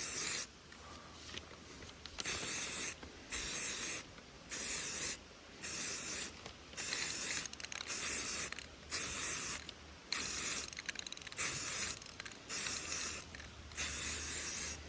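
Tan spray paint hissing from the nozzle in short bursts, about one a second, laying down a light dusting coat on a rifle.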